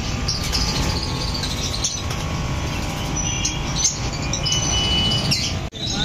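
Caged budgerigars chirping, many short high chirps with a brief held whistle over steady background noise.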